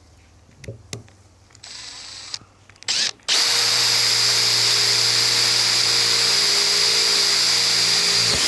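Electric drill boring a hole through the Ford Ranger's sheet-metal front guard with light pressure. A few short clicks and a brief spin of the drill, then about five seconds of steady high whine that stops suddenly near the end.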